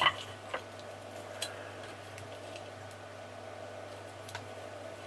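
A few isolated light plastic clicks and taps as a cable tie is worked around a plastic automotive connector, over a steady low hum.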